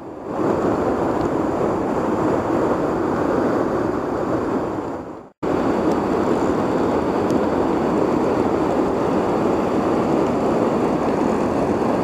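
Steady rushing of river current, a loud even hiss of water. It fades out briefly about five seconds in, then cuts straight back in unchanged.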